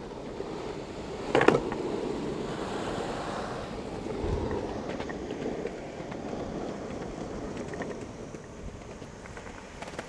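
Longboard wheels rolling fast on asphalt, a steady rumbling hiss, with one sharp clack about one and a half seconds in.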